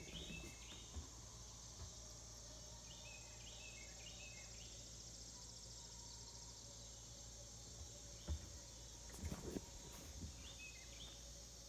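Faint, steady chorus of insects such as crickets, with short high calls repeated in groups of two or three every few seconds, and a few dull low thumps.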